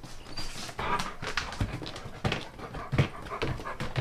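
Husky panting, with quick breaths coming one after another.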